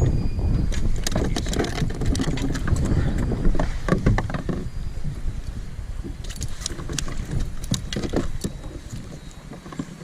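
Scattered clicks and knocks of things being handled aboard a small boat, over a low rumble that fades toward the end.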